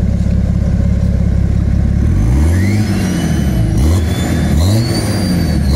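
BMW 535d's twin-turbo straight-six diesel, heard at its tailpipe with the stock middle and rear silencers, idling and then revved in about four quick throttle blips starting about two seconds in. A rising turbo whistle comes with each blip.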